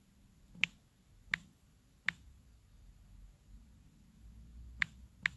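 Fingertips or fingernails tapping on a smartphone touchscreen, five short sharp clicks at irregular intervals, most about a second apart with a longer gap in the middle.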